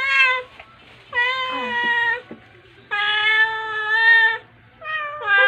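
Domestic cat meowing repeatedly: about four long, drawn-out meows, each a second or so, with short pauses between, while it waits to be fed.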